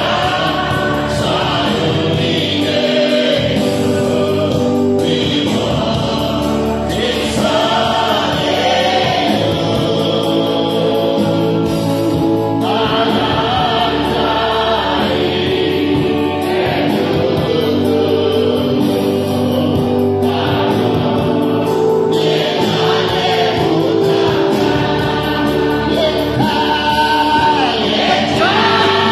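A group of voices singing a Kalenjin gospel worship song together, over steady instrumental backing.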